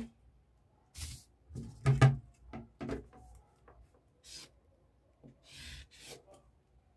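Paper pattern sheets rustling and sliding on a wooden table as a plastic pattern-master ruler is picked up and laid across them, with several light knocks, the loudest about two seconds in, and a short stretch of rubbing near the end.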